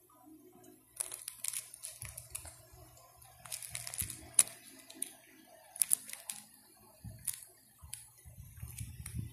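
Clear plastic coin-album pocket pages crinkling and rustling in short bursts, with a few sharp crackles, as they are handled and a finger presses on the coins through the pockets. A low rumble of handling noise comes in near the end.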